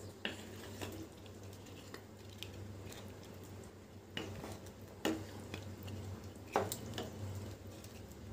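Wooden spatula stirring chicken curry in a non-stick pan, with short scrapes and knocks against the pan every second or so, over a low steady hum.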